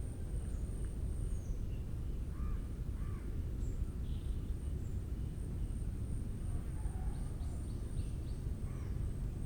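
Forest ambience after rain: scattered short bird calls, with a pair of arched calls about a third of the way in and a quick run of chips near the end, over a steady high insect drone and a steady low rumble.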